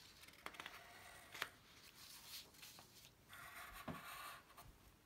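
Faint scratching of a graphite pencil drawing lines on paper, in a few strokes, the longest near the end, with a couple of light clicks.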